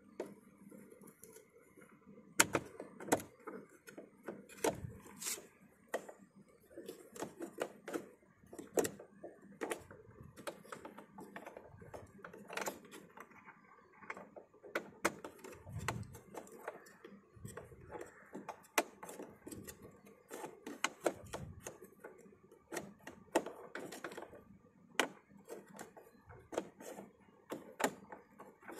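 A screwdriver turning the screw in the interior door-handle recess of an Audi A4 B8 rear door panel. It makes irregular small clicks and ticks of metal on the screw and the plastic trim, with a few louder knocks scattered through.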